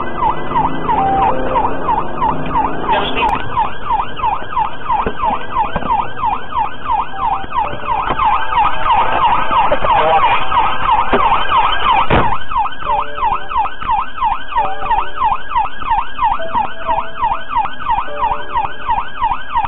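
Police car siren on a fast yelp, about three rising-and-falling sweeps a second. A sharp knock sounds about twelve seconds in, and short lower beeps repeat through the last part.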